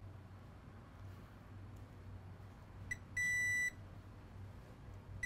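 Digital multimeter in diode mode giving a brief chirp and then a short, steady high-pitched beep of about half a second as its probes touch a diode on a laptop motherboard. The beep marks a near-zero reading, a short on that diode. A faint low hum runs underneath.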